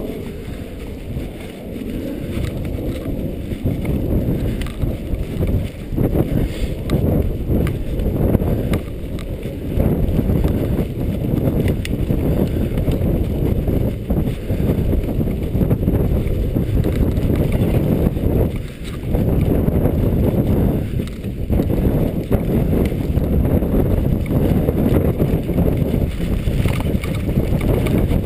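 Mountain bike riding over rough, tussocky grass, heard as a loud, steady rumble of wind on the microphone and tyres on the ground, with scattered rattles and knocks from the bike over bumps. The rumble eases briefly twice a little past the middle.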